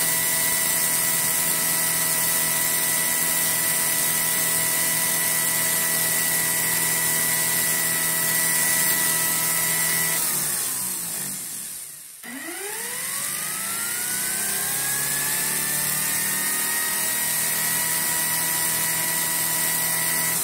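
A 250-volt blender's universal (brushed) motor spinning fast on a 12-volt DC supply: a steady high whine with a hiss of brush noise. About halfway the power is cut and the motor winds down, its whine falling almost to a stop. Then it is reconnected and spins back up, the whine rising and settling at full speed.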